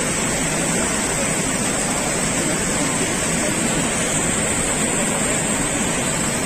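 White water rushing hard down a narrow concrete channel, making a steady, even noise with no let-up.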